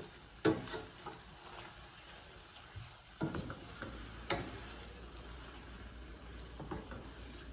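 Sliced mushrooms and garlic sizzling faintly in a stainless steel sauté pan as their released liquid cooks off, stirred with a wooden spoon that scrapes and knocks against the pan a few times.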